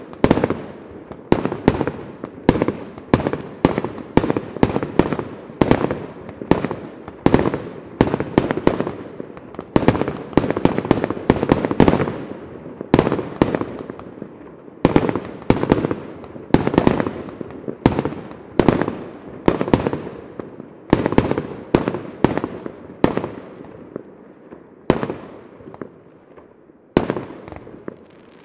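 Large aerial fireworks display: shells bursting in quick succession, about one to two sharp bangs a second, each with an echoing tail. The bangs thin out and grow quieter for a few seconds near the end, then pick up again.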